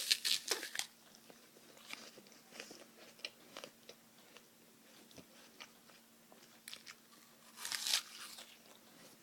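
Someone biting into a raw apple close to the microphone and chewing it: two loud crunching bites, one at the start and one about eight seconds in, with quieter chewing clicks between them.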